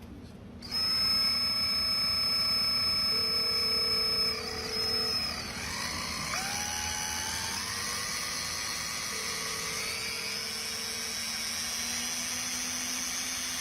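A machine's steady whine made of several tones. From about six seconds in, its pitch rises in a few stepped glides.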